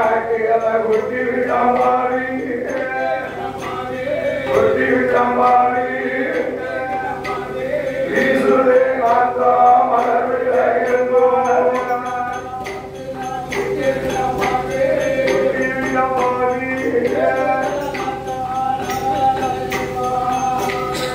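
Male voices singing a chant-like Tamil folk story-song over a steady sustained drone, with scattered sharp percussion taps.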